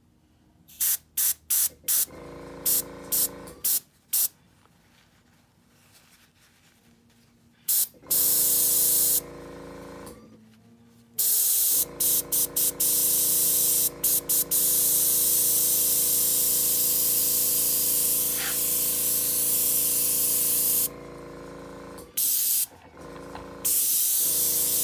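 Airbrush blowing air onto alcohol ink on paper, hissing in a few short puffs and then in long steady blasts of several seconds, with a steady hum from its air compressor underneath. The air is pushing and drying the wet ink.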